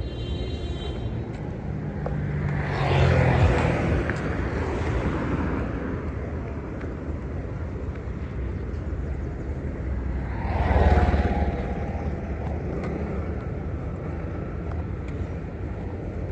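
Road traffic: a steady low rumble, with two vehicles passing close by, about three seconds in and again about eleven seconds in, each swelling and then fading away.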